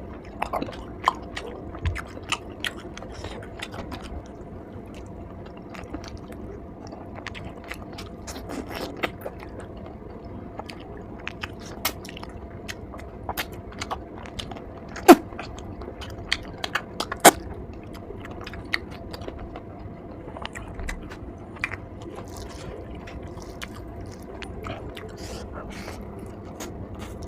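Close-miked eating: chewing and biting with many short wet clicks and smacks, and two much louder sharp clicks in the second half.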